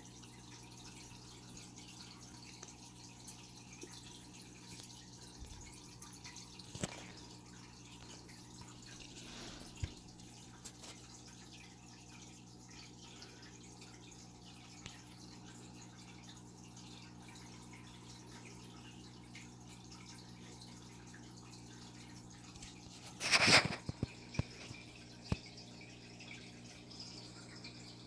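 Water dripping and trickling in a fish tank over a steady low hum from the aquarium equipment, with a few small ticks. A brief loud clatter sounds about 23 seconds in.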